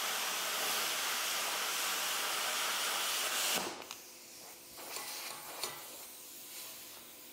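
BestArc BTC500XP plasma cutter cutting quarter-inch steel at full output on 120 volts: a loud, steady hiss of the plasma arc and air that cuts off sharply about three and a half seconds in. A quieter hiss follows, with a few clicks.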